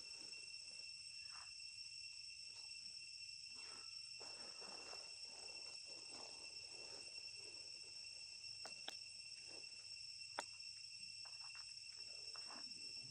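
Steady chorus of insects, a constant high-pitched trill, with faint rustling and two sharp clicks near the end.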